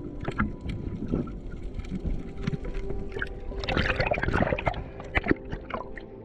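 Underwater water noise picked up by a freediver's action camera: gurgling and sloshing with scattered clicks, and a louder rush of exhaled bubbles about four seconds in.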